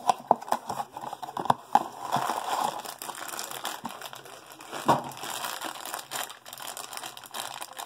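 Crinkling and rustling of Funko Mystery Minis blind-box packaging being handled and opened, with scattered sharp clicks of cardboard and plastic.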